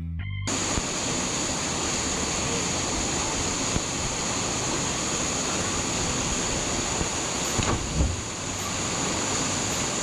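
Steady rushing roar of a waterfall, with one brief thump about eight seconds in.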